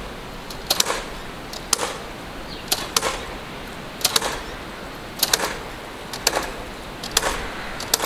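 Power nail guns firing nails into new timber roof battens: sharp shots about once a second, some in quick pairs, over a steady background hiss.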